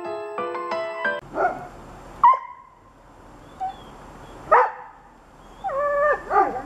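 A piano tune stops about a second in. A dog then barks a few times in short separate barks, the last a drawn-out, yelping one near the end.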